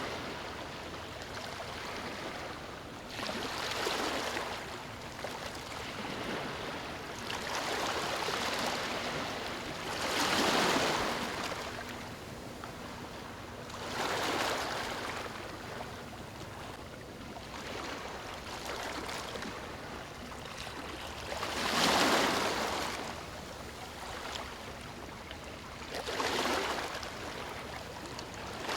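Small, calm waves breaking and washing up a sandy beach, each surge swelling and fading every few seconds over a steady wash of water.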